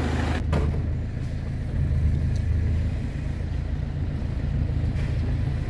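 Peugeot 206 1.4 HDi running steadily with a single sharp knock about half a second in, the clunk from its cold-pressed, over-compressed front coil springs, which bind and keep the top strut bearing from turning freely.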